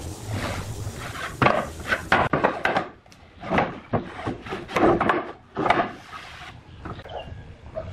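Pine boards being laid out side by side on a workbench: a run of irregular hollow wooden knocks and clacks as the boards strike one another, with scraping slides as they are pushed into place, thinning out near the end.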